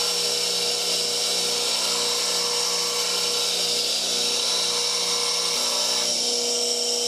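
8-inch slow-speed bench grinder with a CBN wheel grinding a steel spindle gouge: a steady motor hum under a high grinding hiss, as the gouge is reshaped to remove a flat spot on its nose. The grinding noise eases about six seconds in while the motor keeps running.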